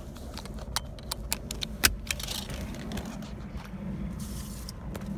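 Metal seat-belt tongue and buckle rattling and clicking, a quick run of sharp clicks about one to two seconds in, over the steady low hum of the 1989 Oldsmobile Cutlass Ciera's engine heard from inside the cabin.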